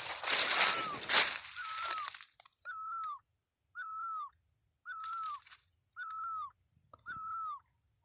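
Rustling and crunching through undergrowth for about two seconds, then a bird call: one short whistled note that rises slightly and drops at the end, repeated very evenly about once a second.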